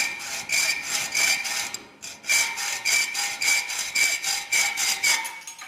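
Hand hacksaw cutting through the steel handle of a dinner fork, in steady back-and-forth strokes about three a second, with a brief pause about two seconds in; the fork rings with a thin metallic tone on each stroke.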